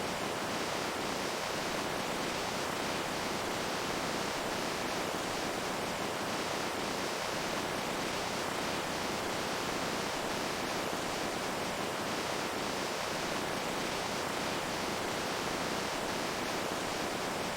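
Flowing water rushing steadily, an even hiss with no pauses or changes.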